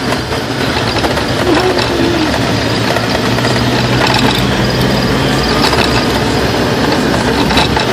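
Vehicle engine running steadily under a constant rushing noise of travel, its low hum easing off after about five and a half seconds.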